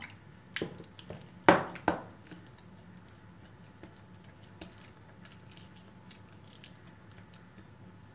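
Clear slime of glue and borax water being stirred in a bowl, making sticky, wet squelches and smacks. A cluster of sharp squelches comes in the first two seconds, then only faint scattered ticks.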